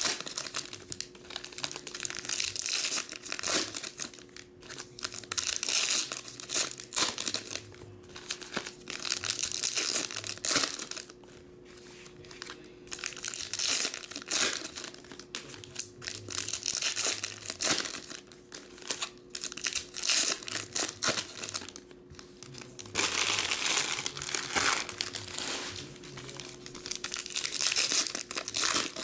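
Foil wrappers of 2008 Donruss Elite Extra Edition baseball card packs crinkling and tearing as the packs are opened by hand. The sound comes in repeated bursts, with a short lull about eleven seconds in.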